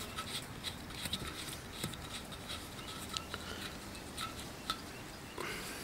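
Small scattered clicks and rubbing as plastic sprayer nozzle caps and fittings are handled and screwed on by hand.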